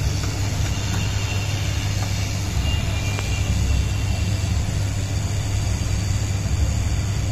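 SMD hot-air rework station blowing steadily through its nozzle while an SMD resistor is heated off a circuit board, the airflow turned down so the tiny part isn't blown away, with a low hum under the rush of air. A faint tick about three seconds in.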